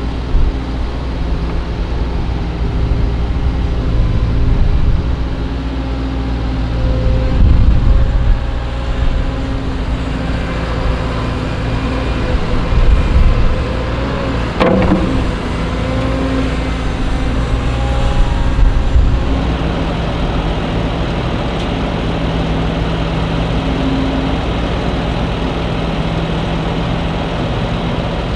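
CAT M314F wheeled excavator's diesel engine and hydraulics working, the hydraulic whine rising and falling as the boom and bucket move. There is one sharp clank about halfway through as the bucket tips its load into a steel dump trailer. A steadier, even engine tone takes over for the last third.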